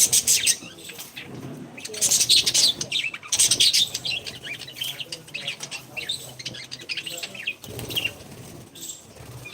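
Parrots chirping and fluttering their wings, loudest in bursts at the start and from about two to four seconds in, then quieter scattered chirps.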